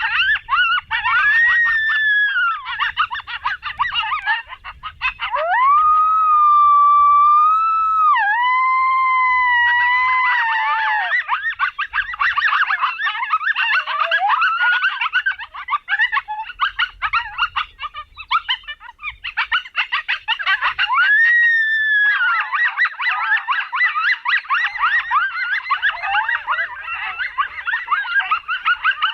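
Coyotes yipping and howling in a dense, chaotic chorus of rapid high yips and short barks. A long wavering howl rises out of it about six seconds in.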